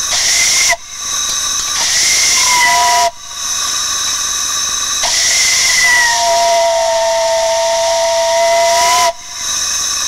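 Brass steam whistles on a steam manifold blowing a series of blasts over a loud hiss of escaping steam. There is a short blast, then one of about two seconds, then a long one of about six seconds in which a high tone slides down and two lower tones take over. Each blast stops abruptly.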